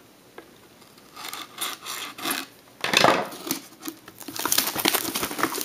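A sealed trading-card box being opened by hand: scraping and rustling of its wrapping and cardboard. There are scattered rustles at first, a louder scrape about three seconds in, and dense crackling from about four and a half seconds on.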